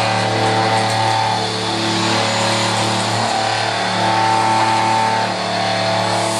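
Machinery running steadily: a low hum with higher whining tones that come and go every second or so.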